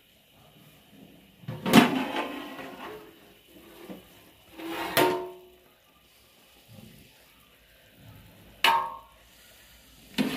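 Aluminium cookware clanking: the flat lid of a large aluminium cooking pot and a steel ladle and spoon knocking against the pot, each knock ringing on briefly. The loudest strikes come about two and five seconds in, with more near the end.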